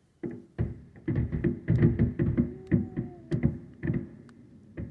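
Fireworks display: a rapid barrage of aerial shell bursts, more than a dozen sharp bangs in quick succession with a rumbling echo, loudest in the middle and thinning out near the end.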